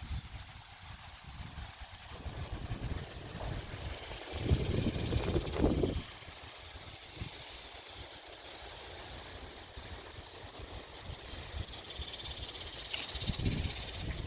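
Gusty windstorm wind buffeting the microphone in low rumbles, with a strong gust about four to six seconds in and another building near the end. A higher hiss rises along with the gusts.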